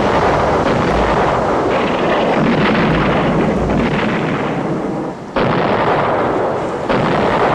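A destroyer's 5-inch naval guns firing a shore-bombardment barrage: loud, continuous gunfire and blasts with no break, and two sharp fresh blasts about five and a half seconds in and near the end.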